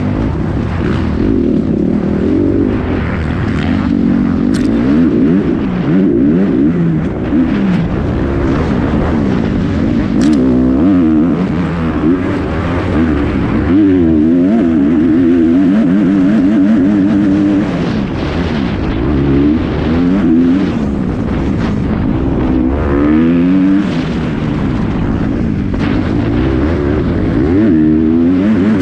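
Kawasaki dirt bike engine heard up close from on board, revving hard and dropping off again and again as the rider works the throttle and gears over rough off-road terrain, its pitch swinging up and down every second or two.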